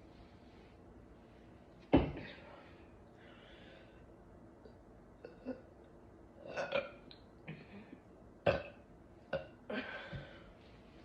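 A woman burping: one loud burp about two seconds in, then a run of several shorter burps in the second half.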